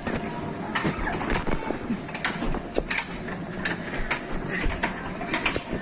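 Scattered knocks and rubbing of a handheld camera bumping against padded play-structure walls as a child crawls through a tight tunnel, over the steady background din of an indoor play area.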